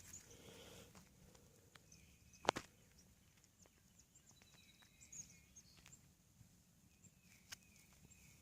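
Near silence, with a few faint clicks and one sharper click about two and a half seconds in.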